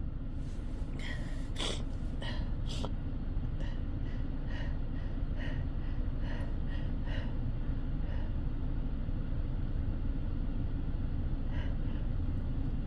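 A person breathing in faint, short gasps and sniffs during a sneezing fit, about two a second at first and sparser later, over a steady low rumble.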